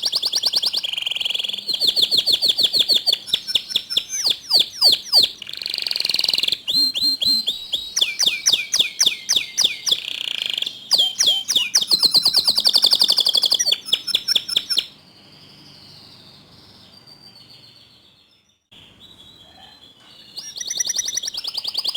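Domestic canary singing a long, loud song of rapid trills and rolls, each made of quickly repeated sweeping notes. The song falls to a faint level about two-thirds of the way through and comes back loud just before the end.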